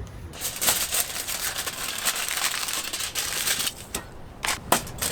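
Crinkling and rustling of packaging being handled, a dense crackle for about three seconds, then a pause and a few sharper crinkles near the end.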